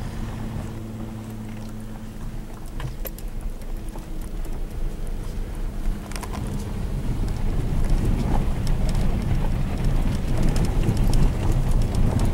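Car driving slowly on a dirt forest road, heard from inside the cabin: a steady engine hum and tyre rumble with scattered small ticks and knocks, the rumble growing louder from about halfway through.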